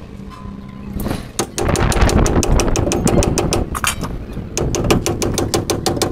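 Rapid hammer blows on a steel front wheel hub, about six strikes a second. They start about a second and a half in and break off briefly near the four-second mark.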